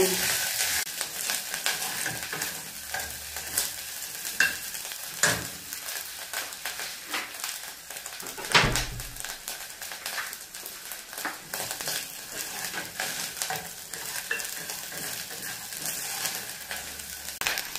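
Omena (small silver fish) frying in oil on low heat in a sufuria, with a steady sizzle and crackle. A spoon scrapes and turns the fish now and then, and there is one louder knock against the pot a little past halfway.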